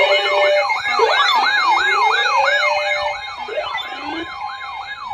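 Electronic sirens sounding together: a fast yelp that sweeps up and down about three times a second over slower rising wails, with a steady high tone underneath. The sirens ease off somewhat about three seconds in.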